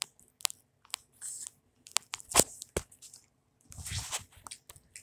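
Scattered crunches and clicks of someone biting into a frozen banana ice pop, the loudest a little over two seconds in, with a short scuffing stretch near the end.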